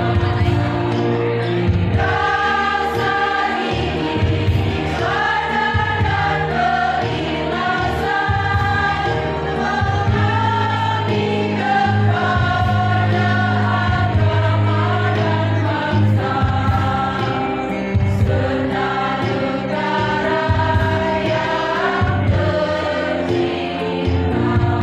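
Women's choir singing a hymn together, with long held notes.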